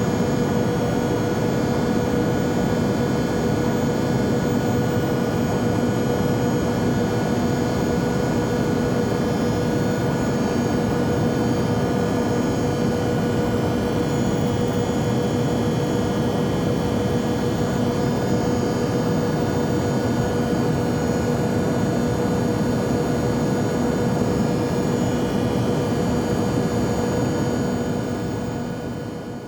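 Jet airliner's steady engine drone, a dense rushing noise with a constant hum in it, fading out near the end.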